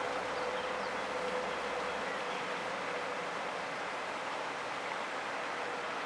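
Steady rushing outdoor background noise with a faint steady hum that fades out about three seconds in; a low rumble drops away about two seconds in.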